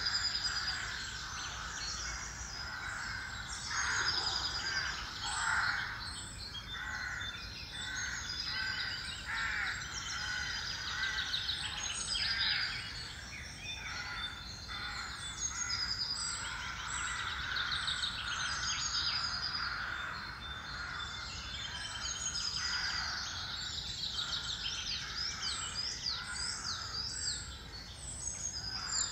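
Field recording of many wild birds singing and calling at once, their songs overlapping in a dense, continuous chorus of chirps and trills.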